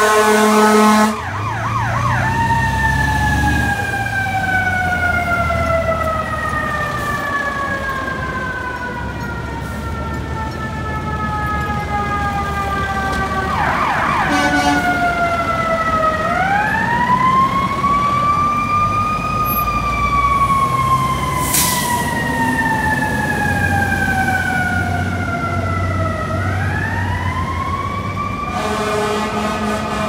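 Fire truck's EQ2B electronic siren, a Q2B-style wail. It winds down in one long falling tone over about twelve seconds, then swoops back up and slowly falls twice more. A horn blares briefly at the start and again near the end, over traffic rumble.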